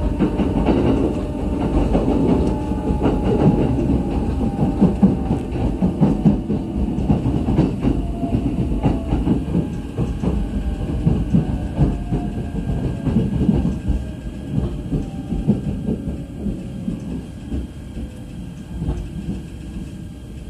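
Running noise inside a JR East E129 series electric train: a low rumble with wheel clicks over the rail joints and a whine that falls steadily in pitch. The sound grows quieter toward the end as the train slows for the station.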